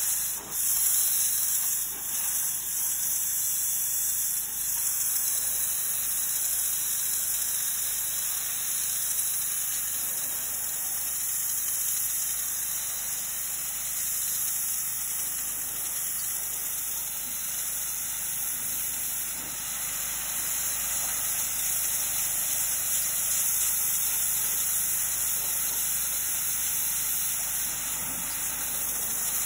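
Pressure washer wand blasting a high-pressure water jet onto brick steps: a steady, loud spray hiss, with a low engine hum from the pressure washer underneath. The spray dips briefly in the first two seconds.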